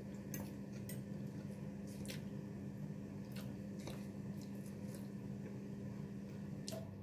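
Eating at a table: a fork or spoon clicks sharply against a plate now and then, about six times, with chewing, over a steady low hum.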